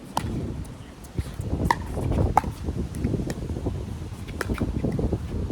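Wind buffeting the microphone as a low, uneven rumble, with several short sharp clicks or knocks scattered through it.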